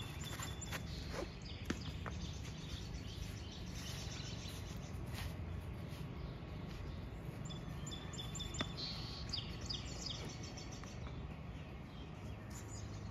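Backyard ambience with songbirds chirping in short bursts over a steady low background rumble. Two sharp knocks stand out, one near the start and one about eight and a half seconds in.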